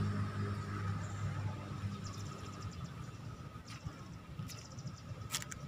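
Outdoor background sound: a low rumble fading out in the first second or so, then a steady faint high note with two short trains of rapid high-pitched ticking and a few sharp clicks.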